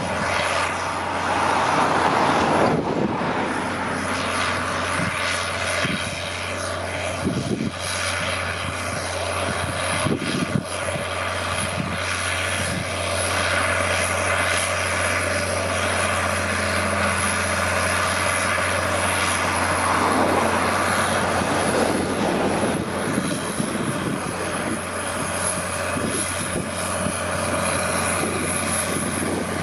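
Caterpillar Challenger MT875C tracked tractor's six-cylinder diesel engine running steadily under heavy load, pulling a Keeble Brothers breaker cultivator through stubble, with a few short knocks from the tracks and the cultivator.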